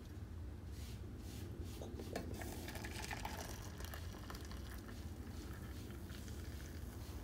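Light, scattered clinks and taps of eating utensils against tableware, over a steady low hum.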